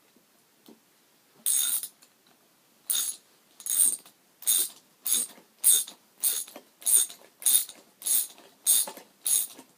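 Socket wrench ratcheting in about a dozen short strokes, each back-swing a burst of rapid pawl clicks, while it tightens a scooter's front-wheel axle bolt. After a first stroke about a second and a half in, the strokes come at an even pace of a little under two a second.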